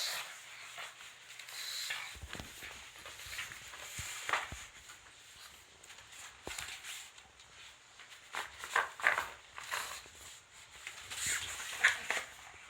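A pug snuffling and scuffling at a fabric cushion as it bites into it: irregular rubbing, scratching and short noisy huffs, loudest around nine and twelve seconds in.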